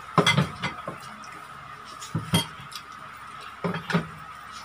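Tableware clinking and knocking on a dining table as dishes and utensils are handled: three small clusters of sharp clinks, near the start, a little past two seconds in, and near four seconds in.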